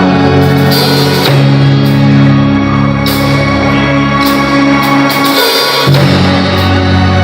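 Band playing live: a drum kit with cymbal crashes over loud held chords that change twice.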